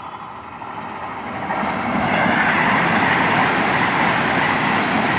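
Vande Bharat Express electric multiple-unit train approaching and then rushing past at high speed. The rolling noise of wheels and air grows louder over the first two seconds, then holds loud and steady as the coaches go by.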